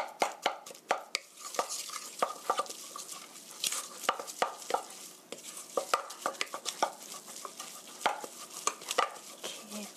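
Wooden spatula stirring ground pork in a stainless steel mixing bowl, with irregular knocks and scrapes against the metal. The seasoned meat is being worked until it turns sticky.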